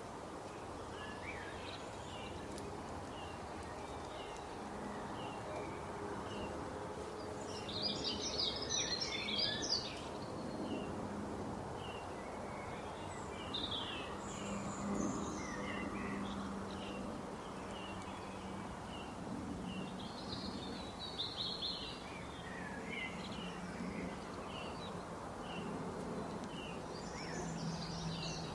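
Small songbirds chirping over steady outdoor background noise: one bird repeats a short, high chirp a little more than once a second, and several louder bursts of rapid twittering song break in over it.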